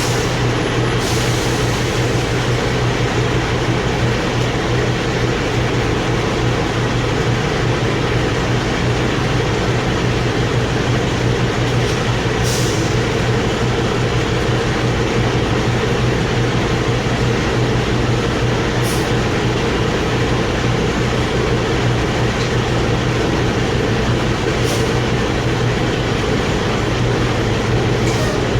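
A loud, steady mechanical drone with a low hum that never lets up, and a few brief hissing ticks scattered through it.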